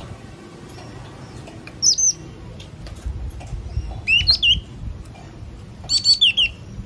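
Yellow-cheeked tit calling: three bursts of sharp, high notes about two seconds apart, first a short pair, then two quick runs of several notes, the last the loudest. A low, steady rumble lies underneath.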